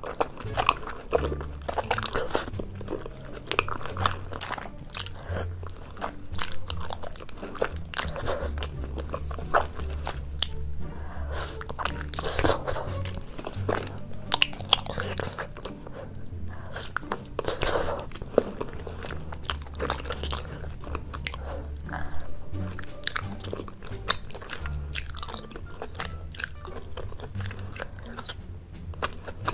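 Close-miked eating sounds: chewing and slurping of cheese-covered tteokbokki rice cakes and cheese noodles, with frequent short mouth clicks and smacks. Soft background music with low steady bass notes plays underneath.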